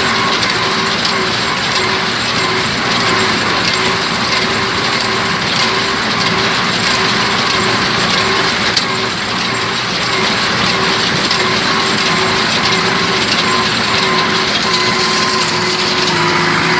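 Fiat 750 tractor pulling a working New Holland 940 hay baler: a loud, steady machine noise with a constant hum.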